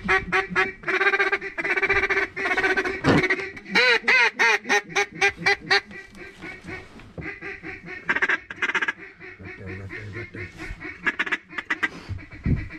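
A duck call being blown to work passing ducks, loud and close: long drawn quacks, then a quick run of falling quacks about four seconds in, and shorter rapid notes near the end.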